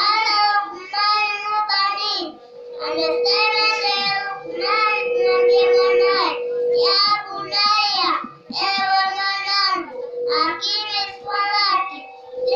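A young boy preaching in Swahili into a microphone in a melodic, chanted delivery, his high voice rising and falling in phrases with short pauses between them. A steady tone runs underneath the voice.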